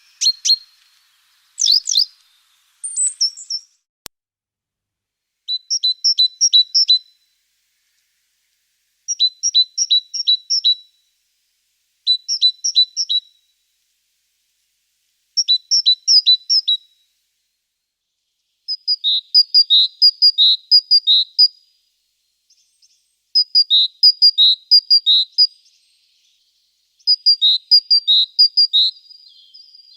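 A songbird singing: short phrases of quick, high two-note chirps repeated every few seconds, the phrases growing longer in the second half, with a few sharper single chirps near the start.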